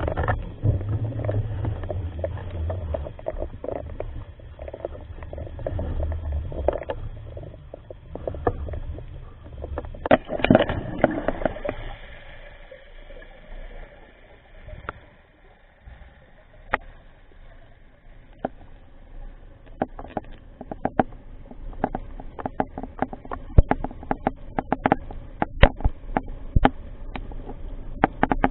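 Underwater sound picked up by a camera in its housing: a low rumble of water movement for the first dozen seconds with a louder rush near the middle, then quieter water full of irregular sharp clicks and crackles.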